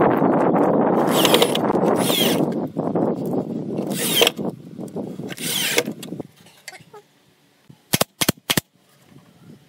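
Cordless drill driving screws into wooden slats, its motor running in spurts with short high-pitched squeals through the first several seconds. About eight seconds in, a nail gun fires three sharp shots in quick succession.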